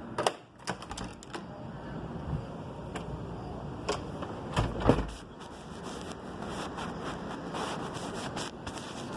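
Irregular clicks and knocks, with a heavier thump about five seconds in, over a low steady background hum.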